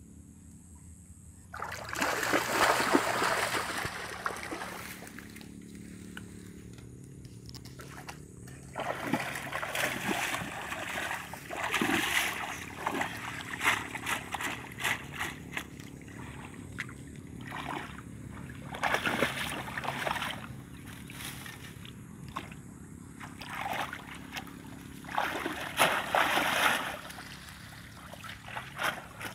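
Shallow water splashing and sloshing in several irregular bursts as a person wades, plunges a conical bamboo fish trap and gropes with her hands in the water. The loudest splashing comes about two seconds in and again near the end.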